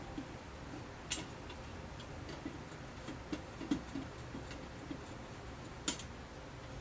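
Faint, irregular small clicks and ticks of a screwdriver working out the screws of a drum-style side light, with two sharper clicks, one about a second in and one near the end.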